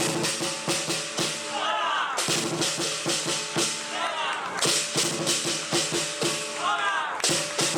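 Lion dance percussion: drum beats with clashing cymbals in a dense rhythm, and a gong ringing under them.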